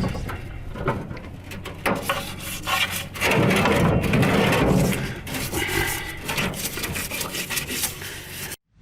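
A brush scrubbing and scraping grime off a solvent-soaked steel suspension part, in irregular strokes with small knocks, cutting off abruptly near the end.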